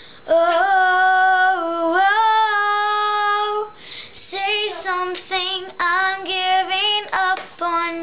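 A young girl singing a slow ballad unaccompanied, holding one long note that steps to a second pitch for about three seconds, then singing a run of shorter phrases.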